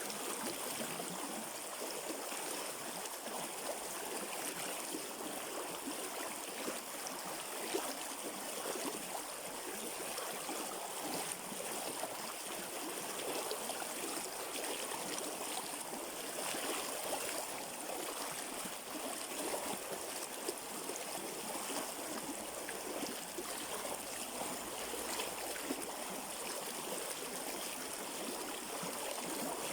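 River water flowing steadily, an even rush of running water.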